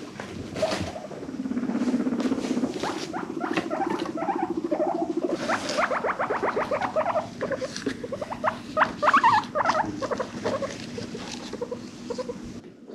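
Guinea pigs vocalizing: a low, fast-pulsing buzz for the first few seconds, with many short squeaks and chirps over it that come thickest from about five seconds on.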